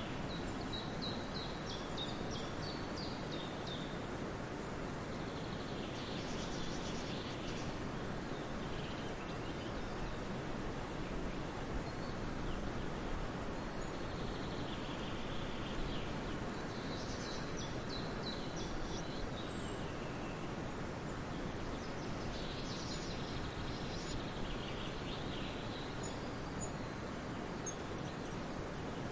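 Small birds chirping in short repeated phrases every few seconds over a steady, even background noise.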